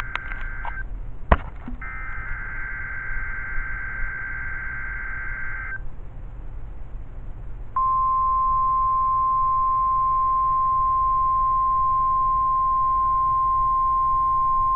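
NOAA Weather Radio Emergency Alert System test on a weather radio receiver. It opens with the tail of one buzzy two-tone SAME data burst, a sharp click, and then a full four-second burst. After a brief pause, the steady 1050 Hz warning alarm tone starts about eight seconds in and holds.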